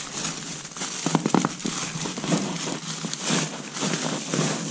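Foil-jacketed insulated flexible ventilation duct crinkling and crackling as it is squeezed and worked by hand, with irregular sharp crackles that bunch up about a second in.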